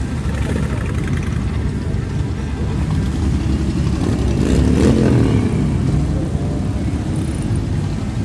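Many motorcycle engines of a mixed column of cruisers and sport bikes running together as the bikes ride slowly past in a dense pack. The sound swells to its loudest about five seconds in, with engine pitch rising and falling, then eases back.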